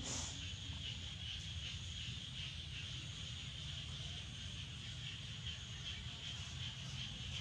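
Steady background sound: a constant high-pitched chirring that pulses faintly, over a low rumble, with a short hiss right at the start.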